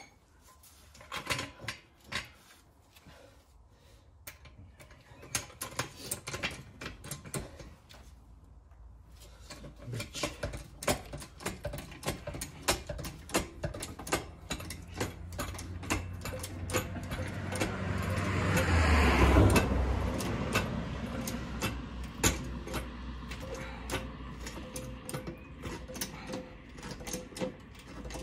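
Hydraulic floor jack being pumped by hand under a car: a run of quick metallic clicks and clunks from the pump handle and mechanism. A rushing noise with a low rumble swells through the middle, is loudest about two-thirds of the way in, then fades.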